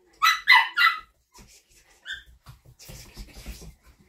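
Australian Shepherd puppy giving three short, high yelps in quick succession, then a single brief squeak about two seconds in, followed by softer scuffling and light thumps on the wooden floor as the toy game goes on.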